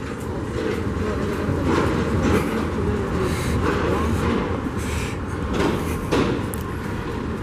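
Streetcar running along the street, a steady low rumble with street noise around it.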